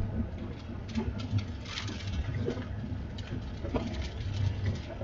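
Storm wind buffeting the microphone in a low, uneven rumble, with scattered light ticks.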